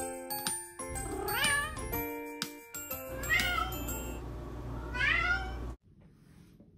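Short intro jingle with bright chiming notes, over which a cat meows three times, about a second and a half, three and a half and five seconds in. It cuts to near silence for the last second.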